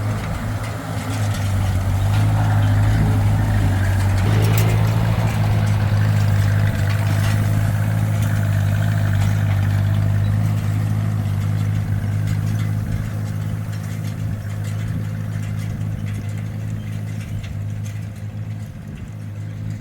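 1957 Ford 850 tractor engine running steadily while raking hay; its engine note shifts slightly about four seconds in.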